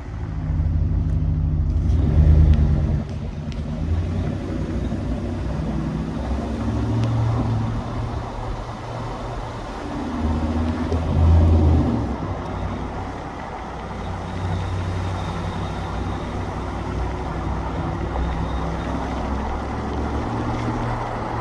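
2019 Ram 1500 pickup running, a low drone whose pitch shifts up and down, swelling louder about two seconds in and again about eleven seconds in. This is the odd noise from the truck that is being recorded.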